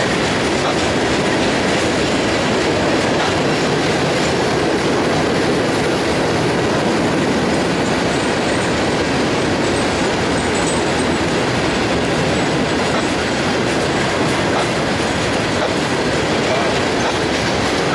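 Freight train of gondola cars rolling past, a steady loud noise of steel wheels running on the rails.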